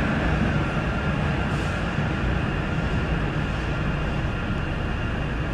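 Driverless Sillim Line rubber-tyred light-metro train running away down the tunnel: a steady rumble that eases slightly as it recedes, with a faint high whine that fades out.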